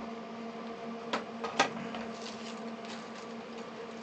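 A steady electrical hum with two short sharp clicks about a second in, then a few fainter ticks: small parts or tools being handled on a workbench.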